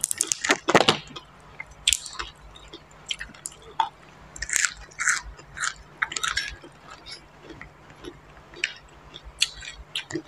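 Close-miked eating: a person bites and chews raw leafy greens, with crisp bites at the start and wet mouth smacks and clicks throughout.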